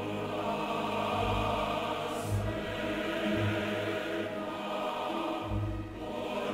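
Orchestral film music with a choir, sustained chords over deep bass notes that swell about once a second.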